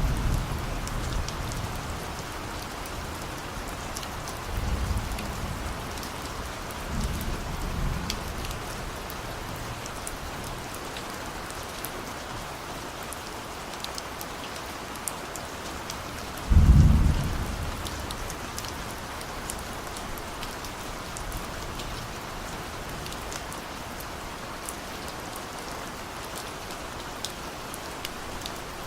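Steady rain with the patter of scattered drops. Several short low rumbles of distant thunder come and go, the loudest a little over halfway through.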